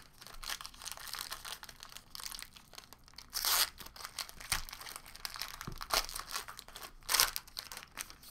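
Red foil wrapper of a Panini Origins football card pack being torn open and crumpled in the hands, crinkling throughout. There are several louder crackles, the loudest about halfway through and near the end.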